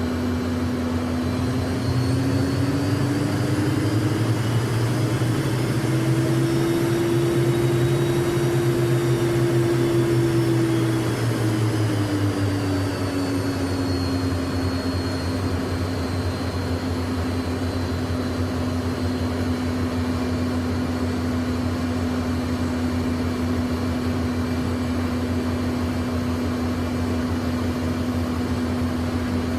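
Learjet's jet engines heard from inside the cabin while taxiing: a steady drone with a high whine. A few seconds in the engines spool up and the pitch rises, holds for several seconds, then settles back down to a steady idle.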